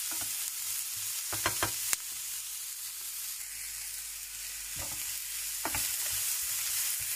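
Chopped bell peppers sizzling as they fry in oil in a pan, stirred with a utensil that knocks against the pan several times about a second and a half in and twice more later.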